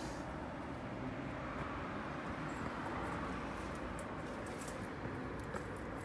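Mametora HMD-B tiller's 7 hp engine running steadily with an even rumble, with a few light clicks over it.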